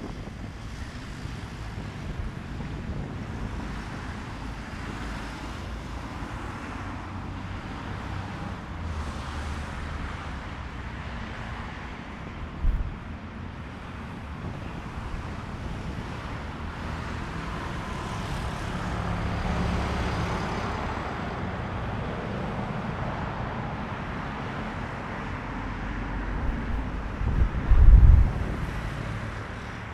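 Strong wind buffeting the microphone, a steady low rumble with two hard gusts, one about 13 seconds in and a louder one near the end. A broader rushing swell rises and fades in the middle.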